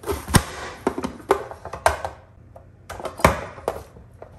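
Green plastic hinged-lid vegetable chopper being worked: the lid is pressed down to push carrot through the blade grid and then lifted, giving a series of about six irregular sharp plastic knocks and clicks.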